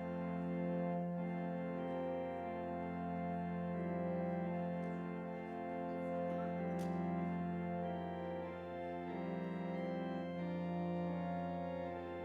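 Organ playing slow, sustained chords over a long-held low bass note, as a church prelude.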